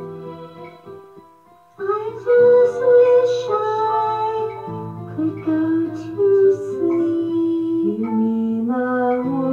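A song: a soft plucked-string accompaniment alone for a little under two seconds, then a singing voice comes in loudly over it and carries a melody to the end.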